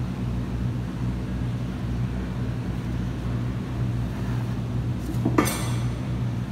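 Steady low machine hum in a steel fabrication shop, with a single sharp metallic clank that rings briefly about five seconds in.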